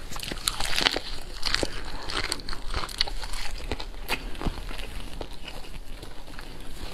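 A person biting into and chewing a lettuce-wrapped piece of pork belly: crisp crunches of the lettuce and wet chewing. The crunches are thickest in the first couple of seconds and then thin out to occasional ones.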